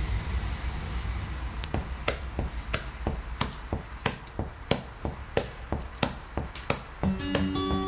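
Background music opening with a steady rhythm of sharp ticks, about three a second, after a low rumble. Guitar notes come in near the end.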